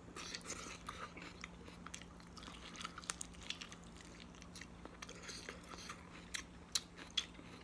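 Close-up chewing of a mouthful of rice and goat meat, with scattered soft wet clicks over a faint steady hum.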